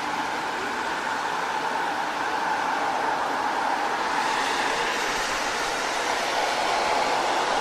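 Car tyres hissing steadily on a wet road, a continuous spray-like wash of noise that grows a little brighter about halfway through.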